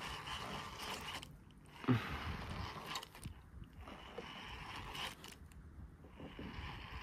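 Small mechanical clicks and scrapes from a fishing kayak and its gear, with water sounds, and a single knock about two seconds in.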